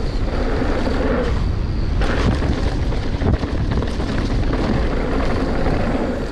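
Mountain bike riding fast down a dirt trail: wind rushing over the camera microphone, tyres rolling on dirt and the bike rattling over bumps, with a heavier thump about three seconds in.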